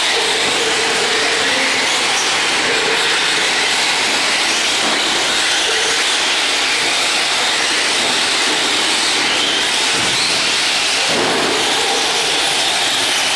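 Radio-controlled racing trucks running on a track: a loud, steady noise with faint, wavering engine whines over it.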